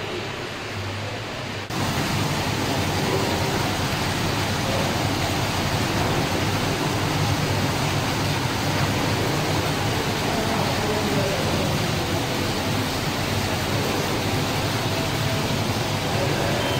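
Water from an indoor wall fountain spilling in a sheet over a stone ledge into its basin: a steady splashing rush. It starts suddenly about two seconds in.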